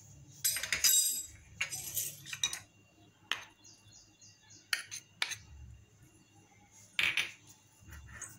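Metal spoon scraping and clicking against bowls while scooping and mixing thick khoya (milk-solid) barfi batter: a few short scrapes early on and about seven seconds in, with single clicks between.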